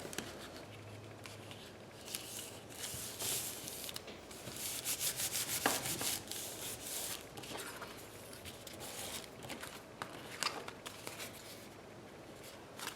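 Printed paper being rubbed and smoothed down onto a freshly glued journal page, with a run of quick rubbing strokes in the middle.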